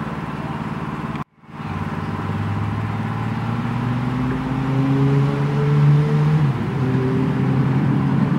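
Miniature park train's locomotive motor running, then rising steadily in pitch as it takes up power to pull away, dropping back a step about two-thirds of the way through. The sound cuts out completely for a moment about a second in.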